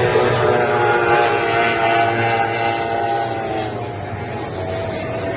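Powerboat engine running, a steady drone that sags slightly in pitch about three seconds in.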